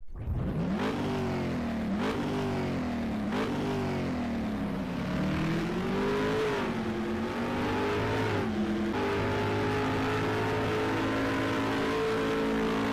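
A car engine revving in repeated blips about once a second, then rising and settling to a steady held speed for the last few seconds.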